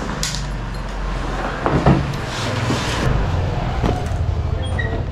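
Harley-Davidson X440's single-cylinder engine idling steadily, with a couple of knocks about two seconds in.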